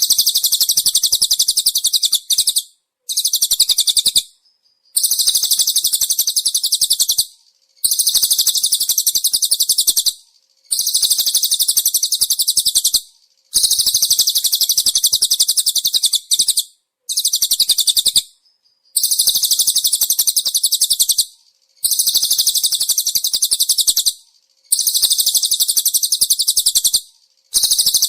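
A small songbird's very fast, high-pitched trill, used as a bird-training (masteran) recording. It comes in bursts of about two seconds, repeated about ten times with short pauses.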